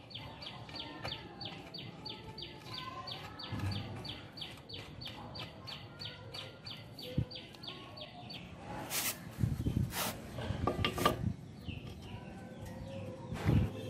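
An even run of chirps, about four a second, with birds calling behind it, stops about eight seconds in. A few loud knocks and clatters follow, plausibly the metal steering parts being handled, with one more knock near the end.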